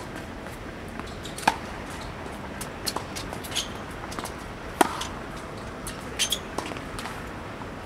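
Tennis rally on a hard court: sharp pops of racket strings striking the ball and the ball bouncing, one every second or two, the loudest about one and a half and about five seconds in, with a few short squeaks of shoes on the court.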